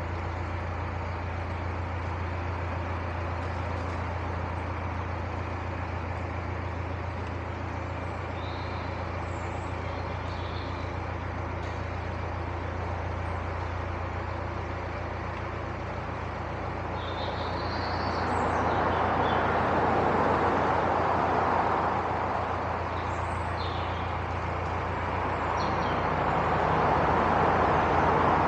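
Narrowboat's diesel engine running steadily under way, a constant low hum. In the second half a louder rushing noise swells up twice over it.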